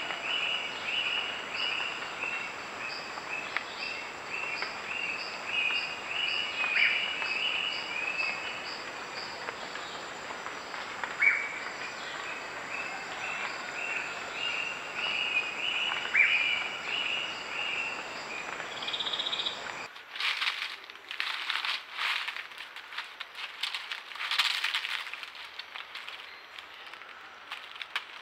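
Night rainforest chorus: a dense run of high, rapidly repeated chirps from calling animals, over the rustle of leaf litter. About two-thirds of the way through it cuts out abruptly and gives way to scattered sharp crackles and clicks.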